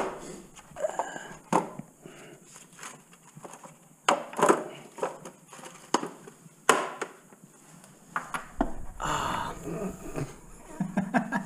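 Scattered metallic clinks and knocks of hand tools and sockets being picked up and handled, a handful of sharp clacks spread out, with some rummaging noise near the end.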